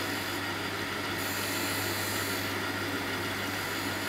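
Jones and Shipman 540 surface grinder running: a steady spindle-motor hum under the hiss of the abrasive wheel grinding a steel vise jaw with flood coolant. The grinding hiss swells and fades as the wheel works down a high spot on the jaw.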